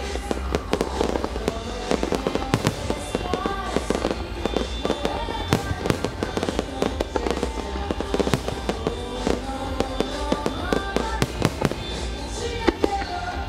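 Fireworks shells bursting in rapid succession, many sharp bangs and crackles throughout, over music played for the show.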